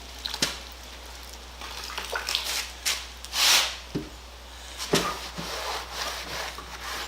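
Damp cloth wiping and rubbing wooden tool box parts with soapy water, with scattered light knocks and clicks as the pieces are handled, and one longer, louder swish about three and a half seconds in.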